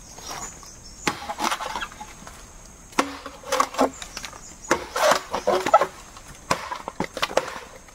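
Traditional Sarawak parang chopping into old, hard bamboo: a series of sharp blows a second or two apart, each followed by the crack and splinter of the bamboo.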